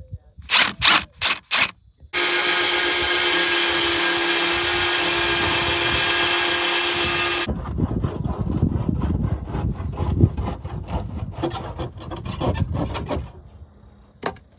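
A cordless drill/driver spins in four short bursts, backing a hinge screw out of a solid-wood door. Then a cordless power tool runs at a steady pitch for about five seconds and cuts out abruptly, its battery run flat, followed by several seconds of scraping and knocking of wood.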